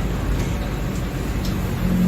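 Mercedes-Benz OF-1721 Bluetec 5 bus's diesel engine running, a steady low rumble, with a hum coming in near the end.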